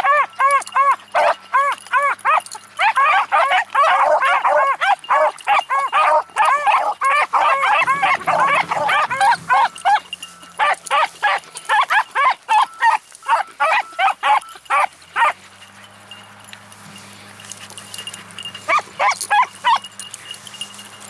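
Pack of beagles baying while running, with rapid, repeated, overlapping cries from several dogs. The baying breaks off about 15 seconds in and resumes briefly near the end.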